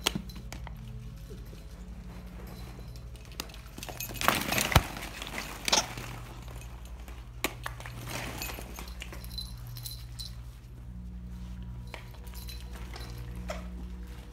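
Hollow plastic ball-pit balls clattering and clicking against each other as a Schnauzer digs through them, with a burst of clatter about four to six seconds in.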